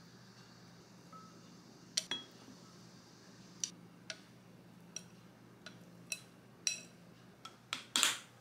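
Chopsticks tapping and clinking against a glass storage jar as shredded carrot is packed in, a scattering of sharp taps. Near the end come the loudest clicks, the plastic clips of the jar's snap-lock lid being pressed shut.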